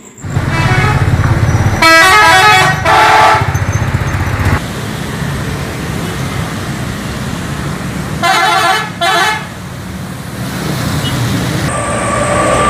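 Bus horns sounding in two pairs of short multi-tone blasts, one pair about two seconds in and another about eight seconds in, over engine rumble and passing road traffic.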